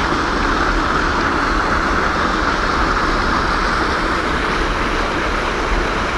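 Steady rushing of water pouring through a barrier built to slow a fast flow, an even hiss with no let-up.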